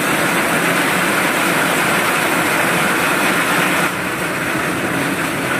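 Steady hiss of heavy rain, with an auto-rickshaw's engine running as it drives through flood water on the street.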